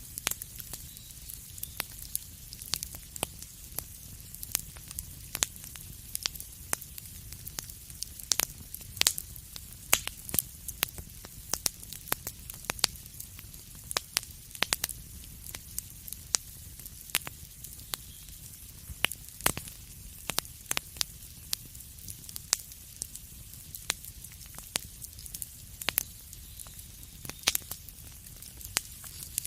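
Fire crackling in a fireplace: frequent sharp snaps and pops at irregular intervals over a steady low rumble and a soft hiss.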